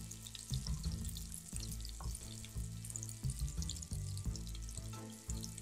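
Chopped onion and dried red chillies sizzling and crackling in hot mustard oil in a pan as they are stirred with a wooden spatula, over background music with a steady bass line.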